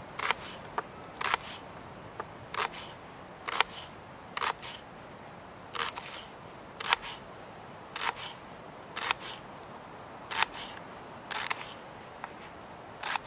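Knife slicing red onion finely against a board, each cut a short sharp tap, about one a second and sometimes two in quick succession. The knife is an Opinel folding knife.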